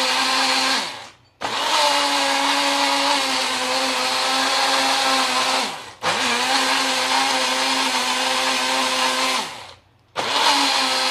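Small JML personal blender motor running in pulses, grinding pesto fine: a steady whine in runs of about four seconds, each ending with the pitch falling as the motor spins down, then starting straight up again. It stops and restarts about a second in, at about six seconds, and at about ten seconds, and spins down once more at the very end.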